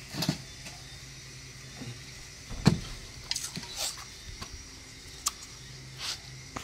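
Knocks and clatters of grass-trimmer engine heads being picked up, handled and set down, about half a dozen irregular bumps with the loudest a little under three seconds in.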